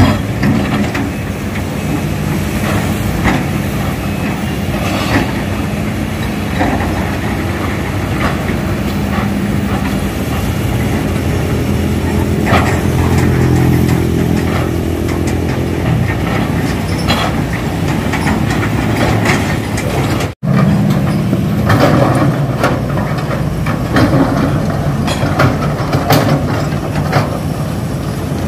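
Hitachi crawler excavator's diesel engine running steadily, with sharp knocks and clanks now and then from the machine at work. The sound cuts out for an instant about twenty seconds in, then the engine runs on.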